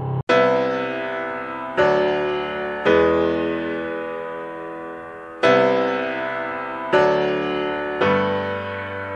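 Background music of slow piano chords, six struck in turn, each ringing on and fading before the next.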